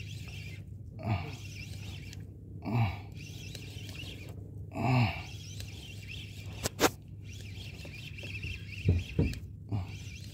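Spinning reel cranked while a small hooked fish is reeled in, with several short squeaks that fall in pitch and one sharp click about seven seconds in, over a low steady hum.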